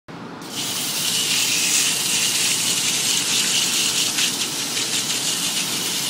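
Water jet spraying onto an air-conditioner condenser coil's fins, a steady hissing rush that starts about half a second in. The coil is being washed because it is clogged with dirt, which drives up the system's pressures and spoils its cooling.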